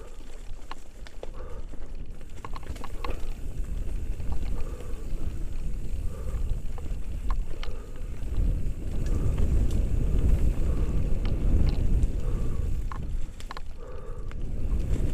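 Mountain bike riding down a rough dirt trail, heard from a helmet-mounted action camera: a steady low rumble of wind on the microphone and tyres over dirt and leaves, with frequent sharp clicks and rattles from the bike over bumps. The rumble grows louder from about eight seconds in.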